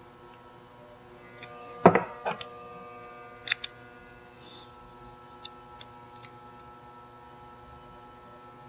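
Small panel switches being handled and clicked: the loudest click comes about two seconds in, followed by another shortly after, a quick double click a second later, and a few faint ticks. A faint steady electrical hum sits underneath.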